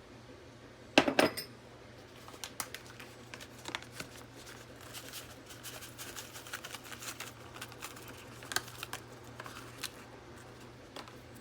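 Kitchen dishes and utensils clattering: a loud burst of several knocks about a second in, then scattered lighter clinks and taps, over a faint steady low hum.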